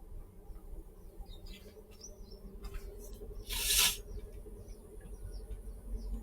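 Forest wildlife chirping: many short, high chirps repeated over a steady low hum. A brief loud rustling hiss comes about three and a half seconds in.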